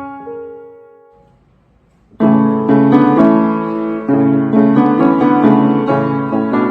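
Solo piano playing: a few held notes die away almost to nothing, then about two seconds in, full chords come in loudly and carry on.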